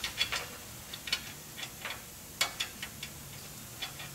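Irregular light metal clicks and ticks of a bolt and Nylock nut being fitted by hand into a steel wishbone brace, with one sharper click about two and a half seconds in.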